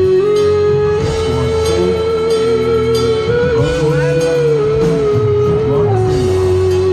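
Electric guitar lead with band backing: one long sustained note, bent up just after the start and held with a wavering vibrato, then let back down near the end, over bass notes.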